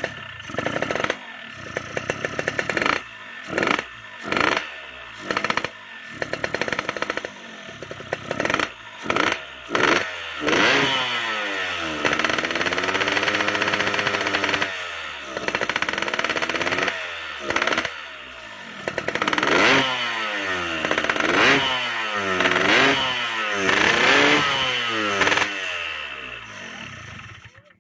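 Yamaha RX-King's 135 cc single-cylinder two-stroke engine, running on a big PWK 35 carburettor, revved in a quick series of short throttle blips for about ten seconds, then held at higher revs with the pitch rising and falling several times. It cuts off suddenly at the end.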